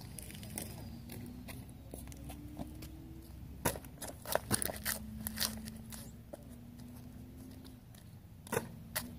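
Quiet outdoor background with a faint low hum that rises slowly in pitch, and a few scattered light knocks and taps, the sharpest near the end.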